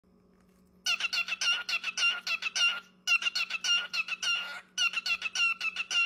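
Male cockatiel singing in three runs of quick, repeated chirping notes, about six a second, with short breaks between the runs.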